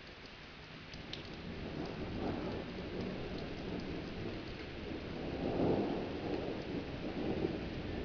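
Thunder rumbling over steady rain. The rumble builds from about a second in and is loudest a little past the middle.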